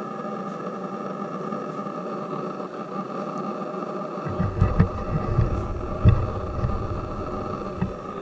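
A steady low hum runs throughout, and from about halfway a run of irregular low thuds and bumps comes in: handling noise from the camera being moved about.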